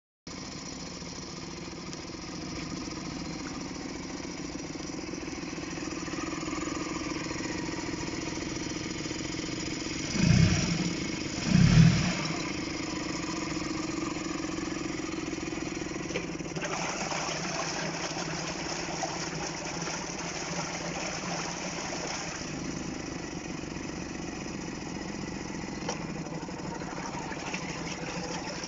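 Suzuki DF20 four-stroke outboard motor running steadily after a full overhaul, with two brief louder surges near the middle.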